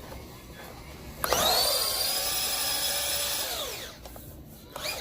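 Traxxas LaTrax Teton 1/18-scale RC monster truck's brushed electric motor and drivetrain whining. It starts sharply about a second in, climbs in pitch, holds for about two seconds, then drops away as the truck slows.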